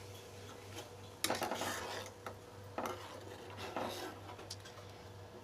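Steel spoon stirring and scraping thickened milk in a black kadai, in several short strokes, the loudest about a second in. A faint steady hum runs underneath.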